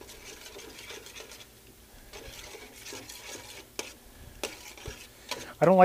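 Food being stirred in a stainless steel stock pot: a metal utensil scraping and rustling through browned chicken and carrots, with a few sharp clicks of the utensil against the pot in the second half.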